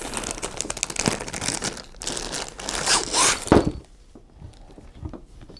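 Thin plastic packaging bag crinkling and tearing as it is opened by hand, busiest for the first three seconds or so, then quieter with a few small clicks.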